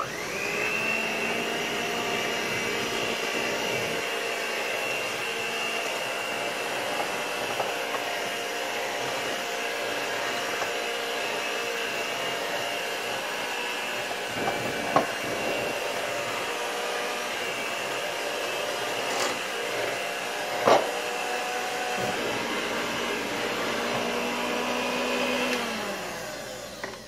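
Handheld electric mixer running steadily on its lowest speed, beating flour into butter dough that turns dry and crumbly. A couple of sharp knocks come partway through, and near the end the motor's pitch drops as it winds down and stops.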